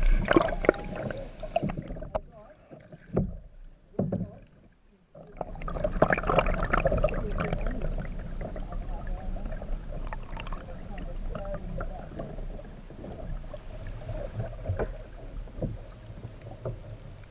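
Kayak paddling: paddle strokes splashing and dripping water, with scattered knocks. It drops almost silent from about two to five seconds in apart from a few knocks, then the splashing comes back and gradually fades.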